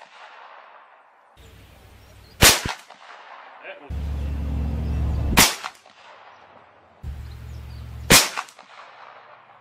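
Three shots from a .50-calibre Dragon Claw pre-charged pneumatic big-bore air rifle, each a sharp crack, about three seconds apart. A low hum swells between shots and stops at each one, loudest before the second.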